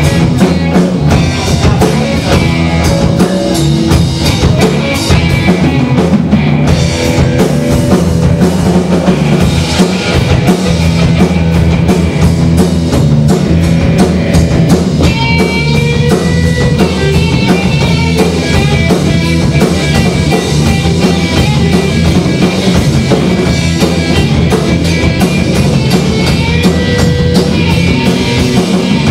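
Rock band playing an instrumental blues-rock improvisation on drum kit, electric guitar and bass guitar, the drums driving steadily throughout and held guitar notes coming forward from about halfway.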